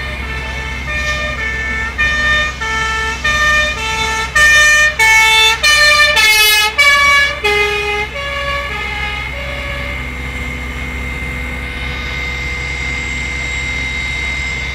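Emergency vehicle's two-tone siren alternating between a high and a low note, growing louder as it approaches. Its pitch drops as it passes, then it fades away into steady road traffic.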